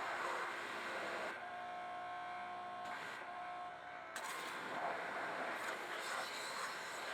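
Pressure washer spraying with a steady hiss; the spray stops a little over a second in, leaving a steady whine, and comes back suddenly about four seconds in.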